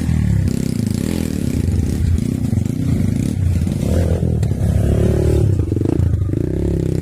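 Trail motorcycle engine running and revving up and down over and over, the pitch rising and falling with the throttle.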